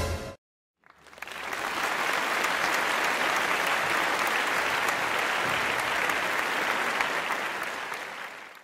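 Crowd applause sound effect, coming in about a second in, holding steady, then fading out near the end. It opens with the last moment of a loud dramatic music hit.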